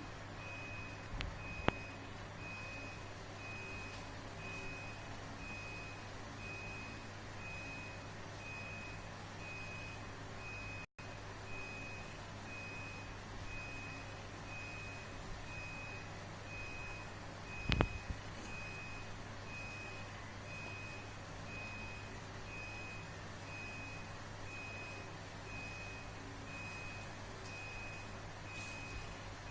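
A high electronic beep repeating at an even pace over a steady low hum, with a sharp knock about two seconds in and a louder thump about eighteen seconds in.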